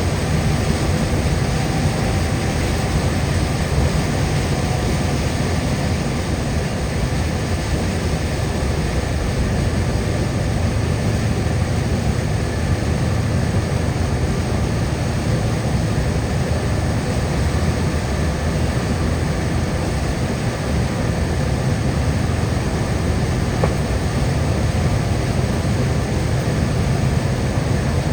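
Steady road noise of a car driving on a wet highway, heard from inside: a low rumble of tyres and engine with an even hiss over it.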